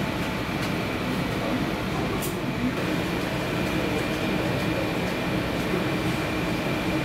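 Steady background din: a constant hum and rumble with a faint high, steady whine and a few light clicks.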